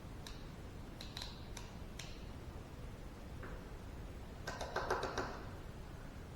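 Light metallic clicks and ticks as a snap ring is fitted into its groove in a Sundstrand hydraulic piston motor, with a quick cluster of ringing metal clicks about five seconds in.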